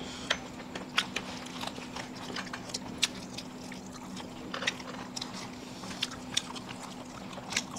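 People chewing and eating biryani and curry: irregular short smacks and clicks, several a second, over a steady low hum.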